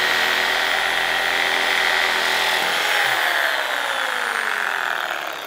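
Corded electric saw running as it cuts into a fir tree, with a steady high motor whine. Over the last two and a half seconds its pitch slides steadily down as the motor slows.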